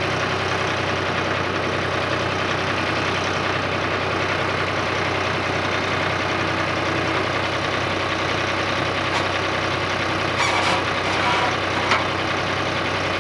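An engine running steadily, most likely the machinery used to load a log onto the sawmill. A few short metallic clanks come between about nine and twelve seconds in.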